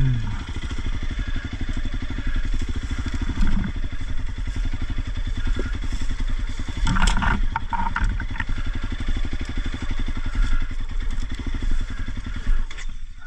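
Honda CRF300L single-cylinder four-stroke engine running at low speed in second and third gear as the bike picks its way over leaf-covered ground. A few short, sharp noises about seven seconds in.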